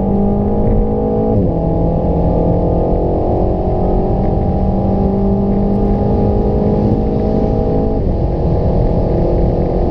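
Renault Mégane IV RS Trophy 300's 1.8-litre turbocharged four-cylinder under hard acceleration, heard from inside the cabin. Its pitch climbs steadily and drops sharply at two quick upshifts, about a second and a half in and about eight seconds in.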